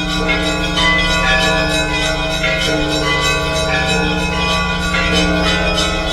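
Orthodox church bells ringing together: smaller bells are struck rapidly, several strokes a second, over the steady, sustained hum of a low bell.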